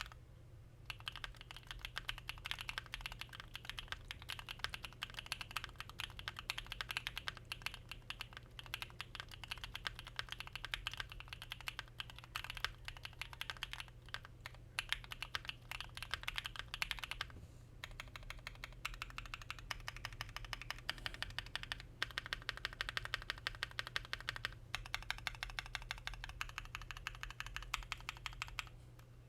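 Fast continuous typing on a custom 60% mechanical keyboard with factory-lubed linear switches (Designer Studio Graphite Gold), an FR4 plate, PBT keycaps and a polyfilled cast aluminium case: a dense run of keystroke clacks that pauses briefly a few times.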